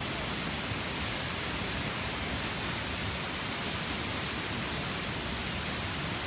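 Tall waterfall plunging into a pool: a steady, even rush of falling water with no break or change.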